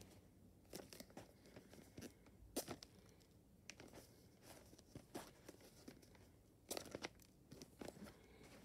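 Faint rustling, scraping and clicking of Blu-ray packaging and a paper insert card being handled, with a few louder scrapes about two and a half seconds in and again near seven seconds.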